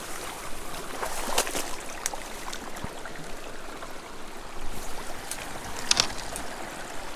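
Pond water sloshing, with a few short sharp splashes scattered through it, as a hooked trout is played on a tenkara line.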